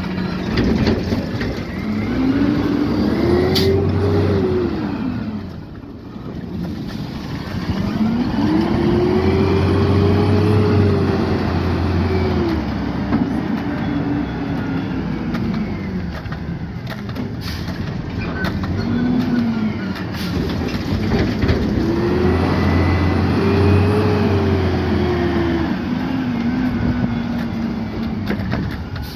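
Peterbilt 520 garbage truck's engine revving up and back down three times, each rev holding for a few seconds as the Rapid Rail automated side-loader arm runs its hydraulics to lift and dump a recycling cart. There is a steady rush of wind and traffic noise underneath.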